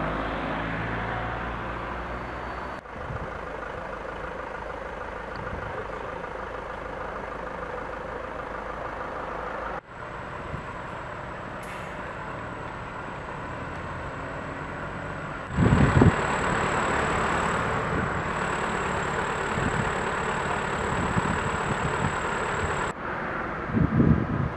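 Road traffic with several vehicles' engines running at idle and creeping slowly forward in a queue. There are loud low thumps about two-thirds of the way in and again near the end.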